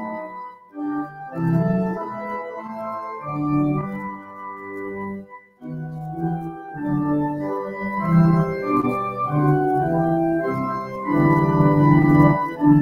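Organ playing a hymn tune in full chords, with short breaks between phrases about a second in and again about halfway through.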